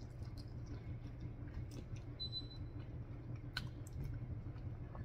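A person chewing pork humba (braised pork belly) eaten by hand, quietly, with a few soft mouth clicks over a low steady hum.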